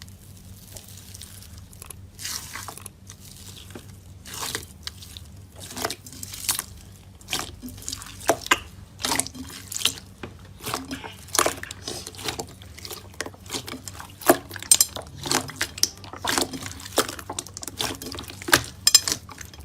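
Slime being squeezed and poked by hand, giving irregular wet clicks and pops that come thicker and louder after the first few seconds, over a faint steady low hum.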